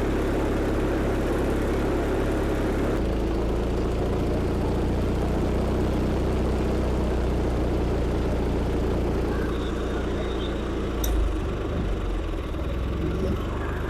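Craftsman GT6000 riding mower's engine running steadily on its freshly rebuilt, just-tuned carburetor, air cleaner off. Its note shifts about three seconds in.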